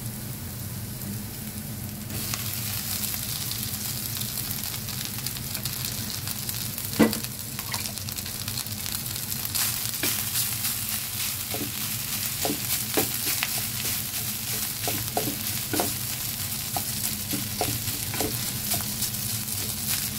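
Cold cooked rice sizzling in hot oil in a nonstick wok, the hiss growing louder about two seconds in. A single sharp knock about seven seconds in, then the spatula repeatedly scraping and tapping against the pan as the sticky rice is broken up and stirred.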